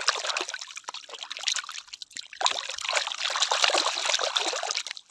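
Water pouring and trickling with a fine splashy patter, as plastic toy animals are washed under it. The flow breaks off briefly about two seconds in, then resumes.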